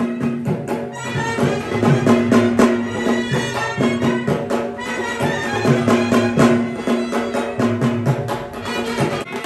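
Traditional band music: a clarinet playing a held, wavering melody over a steady drumbeat from stick-beaten drums.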